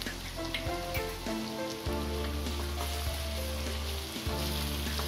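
Boiled taro (arbi) pieces and crushed garlic sizzling steadily as they fry in oil in a kadhai, with a few light knocks of the spatula.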